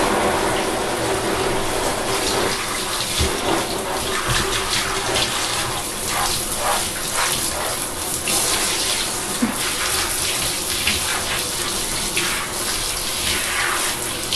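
Water running steadily from a handheld shower sprayer and splashing into a bathtub as a dog is rinsed.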